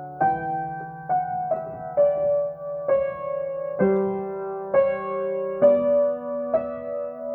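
Acoustic piano improvising slowly, with chords and single notes struck about once a second, each left to ring into the next.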